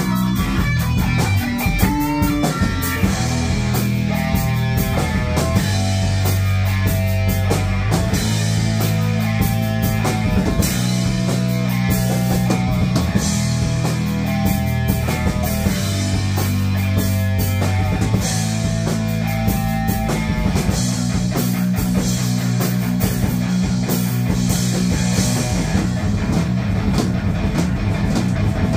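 Live rock band playing together: electric guitars over a drum kit with cymbals, steady and loud.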